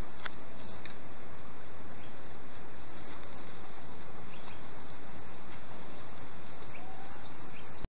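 Steady outdoor background noise of a summer meadow, an even hiss with a few faint chirps and light ticks scattered through it.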